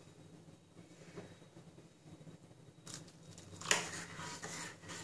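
Metal spoon stirring oats and milk in a bowl, faint scraping and clinking against the bowl, mostly in the last two seconds with a sharper clink about three and a half seconds in.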